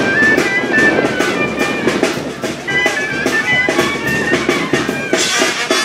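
Band music: a reedy wind-instrument melody of held notes over a steady drum beat, turning brighter near the end.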